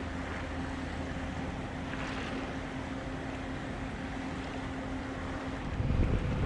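Shoreline ambience of wind and water with a faint steady hum. About six seconds in it jumps to louder wind buffeting the microphone.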